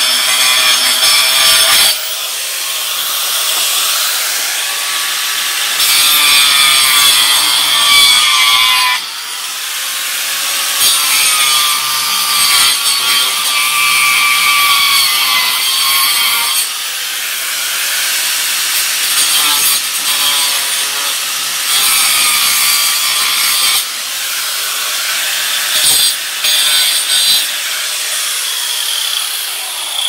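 Handheld corded angle grinder cutting a wooden board. Its motor whine wavers and dips as the disc bites into the wood, with the load shifting every few seconds over several long passes.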